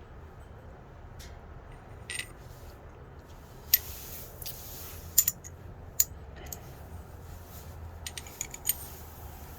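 Sharp, irregular metal clicks and light clinks as steel screwdriver bits are handled against a titanium screwdriver and its magnetic tip, about a dozen in all, the loudest about four, five and six seconds in.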